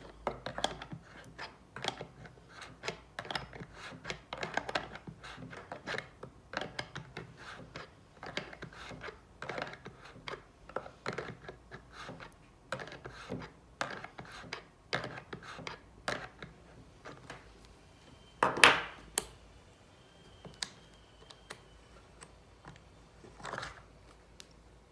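Irregular metal clicks, taps and scrapes of a spanner loosening and unscrewing the main air coupler on an AirBuddy compressor, with a louder scrape about three-quarters of the way in.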